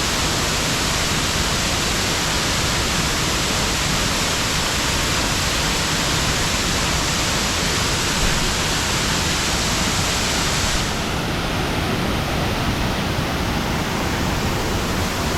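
Duwili Ella waterfall, about 25 m high, rushing steadily as a loud, even roar of falling water. About eleven seconds in the high hiss suddenly dulls, and the rush carries on a little softer.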